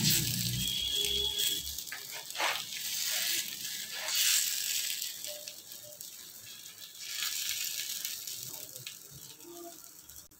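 Pooda batter sizzling in mustard oil on a hot iron tawa while a folded peepal leaf is pressed and dabbed over it, with soft scraping taps; the sizzle fades toward the end.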